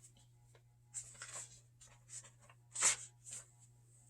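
Soft rustling of paper book pages being handled and turned, in two short clusters about two seconds apart.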